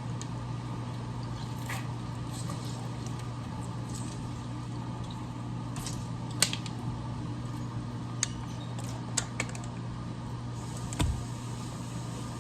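A steady low mechanical hum, with a few short light clicks and knocks scattered through it.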